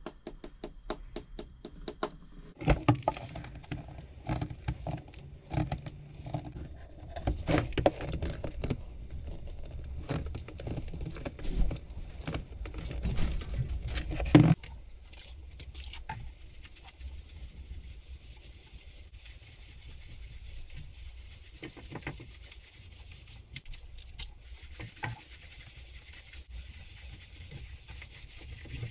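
A household clothes iron pressed and slid back and forth over burr walnut veneer, rubbing and scraping, to lay lifted veneer back down. This stops suddenly and gives way to a cloth wiping polish off the wooden top with a steady soft hiss and a few light knocks. A brief run of rapid clicks comes first.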